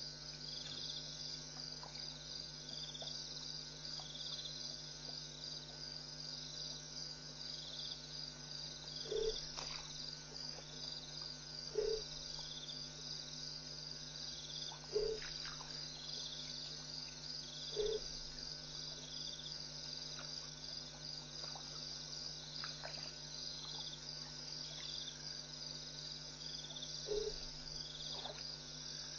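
Night chorus at a waterhole: insects trilling in a steady, rapidly pulsing high band, with a short low call repeated about every three seconds standing out above it. A faint steady low hum runs underneath.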